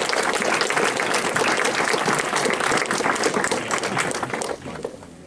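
Audience applauding, many hands clapping at once, dying away about four and a half seconds in.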